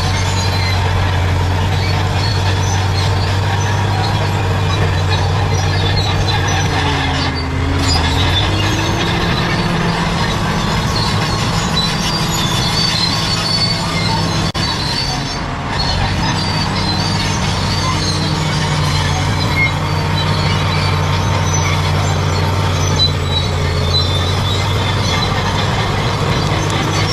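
Crawler bulldozer's diesel engine running steadily under load, with the steel tracks squealing.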